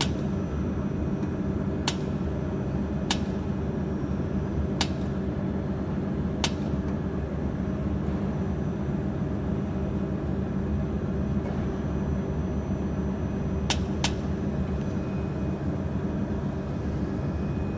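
Steady low hum of a running jewelry laser welding machine. About six short, sharp clicks come at irregular gaps, the buttons being pressed to move the focus crosshair.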